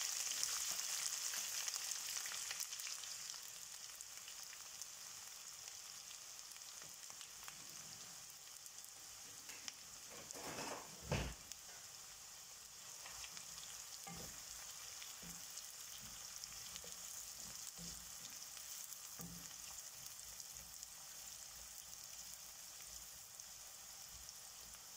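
Chopped ginger sizzling in hot oil in a non-stick kadai along with green chillies, dried red chillies and curry leaves: a steady high hiss, louder for the first couple of seconds after the ginger goes in, then settling to a quieter fry as the water cooks out of the ginger and frozen green chillies. One knock about eleven seconds in and a few lighter taps later.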